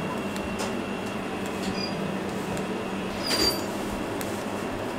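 Steady kitchen background noise with a low hum, and a brief sharp clink a little past three seconds in.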